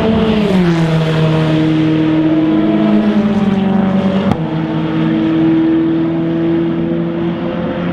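Race car engine, a Ferrari 488 GTE's twin-turbo V8, whose note drops in pitch about half a second in as the car slows, then holds steady. The sound changes abruptly about four seconds in, and a steady engine note carries on as a car goes through a corner.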